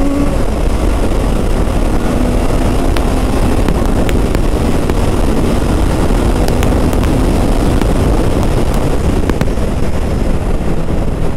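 Heavy wind rush on the microphone of a Triumph Street Triple RS 765 at speed on the open road, with the bike's inline three-cylinder engine running underneath. The engine's pitch rises briefly at the start, then settles into a steady cruise mostly buried by the wind.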